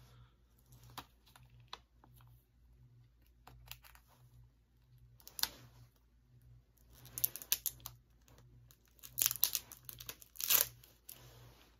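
Plastic shrink wrap being picked at and torn off a DVD case: scattered small crinkles and clicks, then louder bursts of crinkling and tearing in the second half.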